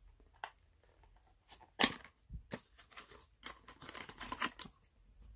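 Fingers opening a small cardboard product box and working at its flap: a string of short paper scrapes and clicks. The sharpest comes about two seconds in, and a busier run of rustling follows near four seconds.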